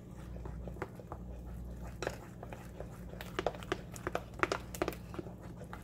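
Silicone spatula stirring thick, still-lumpy pancake batter in a glass bowl. From about two seconds in, a run of irregular soft clicks and scrapes from the spatula against the glass, over a steady low hum.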